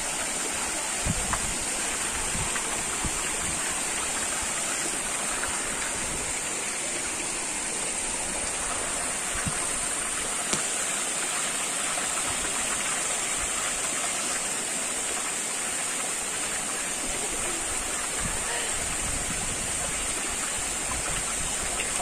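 Mountain stream running over rocks: a steady rush of water. A steady high-pitched hiss sits above it.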